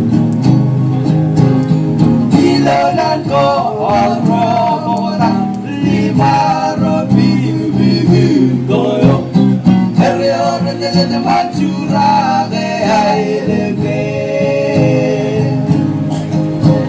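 Live singing by a group of voices to strummed acoustic guitar.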